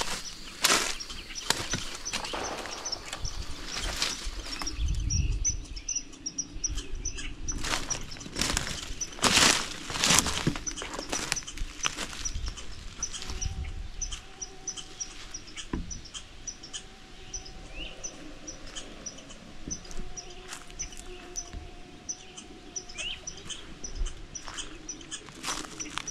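Footsteps crunching over the forest floor, irregular and loudest in the first half, with a small high chirp repeating a few times a second behind them.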